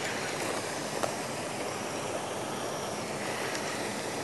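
Steady rushing and splashing of water churned by a pond aerator. A single sharp click about a second in.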